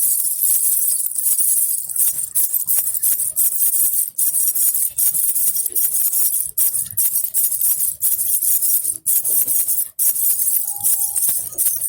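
Baby rattle (jhunjhuna) with small jingling bells shaken steadily, a dense, high jingling that drops out for a split second a few times.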